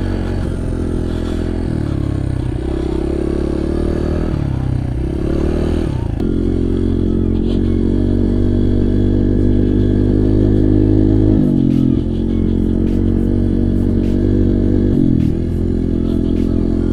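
Honda CRF100F dirt bike's small single-cylinder four-stroke engine running under load while riding through snow. The revs rise and fall several times over the first few seconds, then hold steadier, dropping briefly twice in the second half as the throttle comes off.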